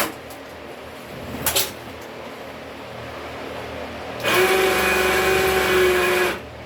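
An electric motor runs at one steady pitch for about two seconds in the second half, starting and stopping abruptly. A sharp click comes at the very start and a brief scrape about a second and a half in.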